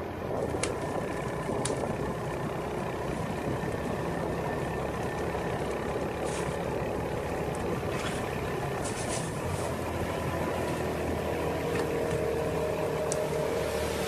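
Motorcycle riding along a road: steady engine and road noise, with a few sharp clicks scattered through it.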